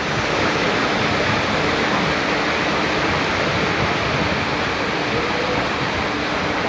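Steady rushing and splashing of floodwater thrown up by a passenger train's wheels and undercarriage as it runs through water over the track.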